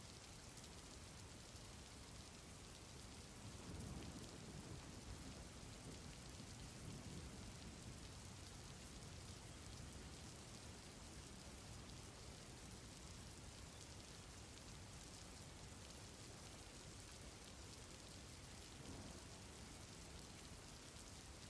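Faint, steady rain ambience: an even hiss of rain, with a soft low rumble swelling a few seconds in and briefly again near the end.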